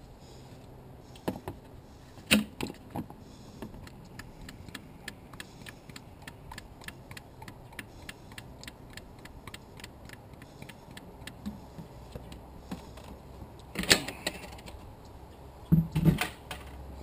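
A plastic jug of motor oil glugging as it pours into a plastic funnel, a steady run of small even clicks several a second as air gulps back into the jug. The jug knocks against the funnel as it is tipped up near the start and again near the end as it is lifted away.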